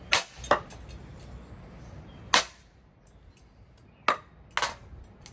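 Hanging Casablanca Four Seasons III ceiling fan being hit hard: five sharp impacts, two in quick succession, one alone about two seconds in, then two more near the end, each with a brief ring.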